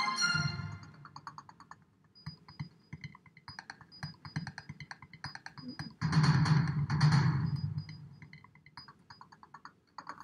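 Computer keyboard typing: a quick, uneven run of light clicks, with a louder rustling burst of noise about six seconds in that lasts a couple of seconds.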